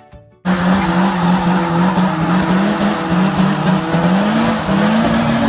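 Drift car sliding at full throttle: the engine's note wavers up and down with the revs over loud tyre noise. It starts suddenly about half a second in.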